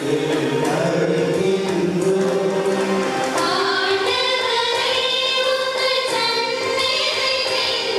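Church choir singing a hymn during the offertory procession, with higher female voices becoming prominent about halfway through.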